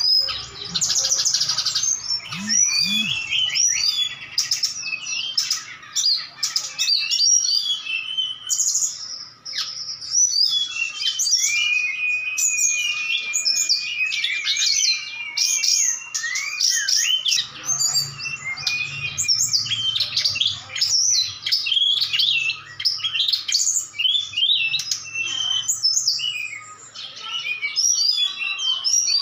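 Caged songbirds, an SRDC (sikatan rimba dada coklat, a jungle flycatcher) and a tledekan gunung, singing against each other in rapid, varied whistled phrases, with one long steady whistle about halfway through.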